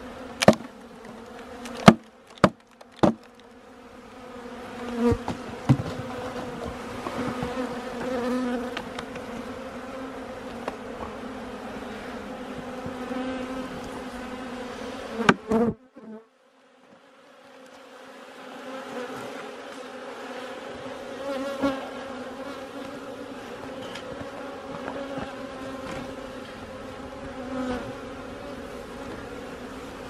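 A mass of honeybees buzzing steadily, a low hum with a clear pitch. Sharp knocks cut through it, four in the first three seconds and two more about halfway, after which the buzzing drops away for about two seconds before returning.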